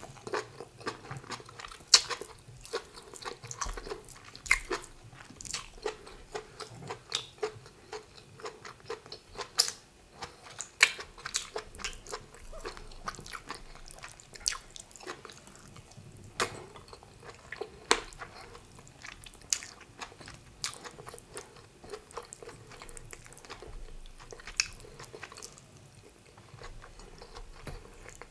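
Chewing and mouth sounds of egusi soup and rice eaten by hand, with many irregular sharp clicks and smacks.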